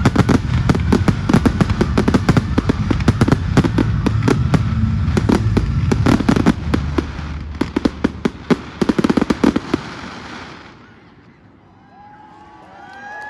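Fireworks going off in a rapid barrage of bangs and crackles over a low rumble, the closing burst of the display, dying away about ten seconds in.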